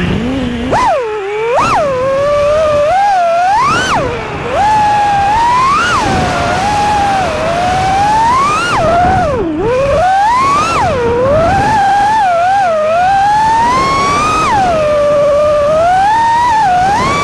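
FPV racing quadcopter's brushless motors whining, the pitch swooping up and down again and again as the throttle is punched and cut during freestyle flying, over rushing air. The motors spin up from a low hum at lift-off at the very start.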